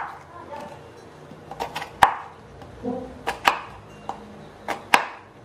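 Kitchen knife slicing through a peeled raw potato onto a wooden cutting board, each cut ending in a sharp tap of the blade on the board. There are about six cuts, some in quick pairs.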